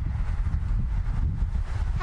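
Wind buffeting the microphone outdoors: a steady low rumble that cuts in abruptly.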